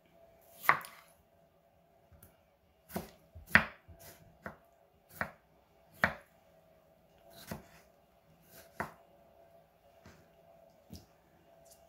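Kitchen knife slicing tomatoes on a wooden cutting board: the blade knocks on the board in separate, irregular chops, roughly one every second or so.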